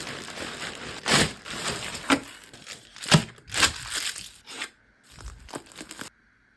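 Packaging being handled and torn open: crinkling and rustling with several sharp cracks, thinning out before stopping abruptly near the end.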